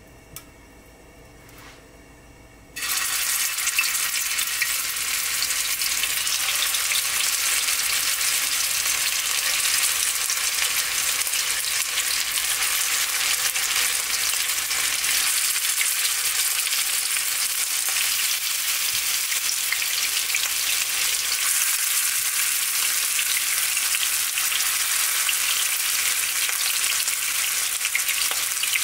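Ground-beef mini seekh kebabs frying in a little hot oil over medium heat. A loud sizzle starts suddenly about three seconds in and keeps on steadily.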